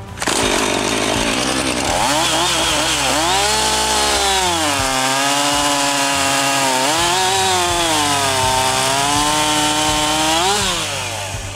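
Husqvarna 450 two-stroke chainsaw at full throttle, cutting through a maple log. The engine pitch sags as the chain bites under load and climbs again between bites, then drops away near the end as the throttle is released.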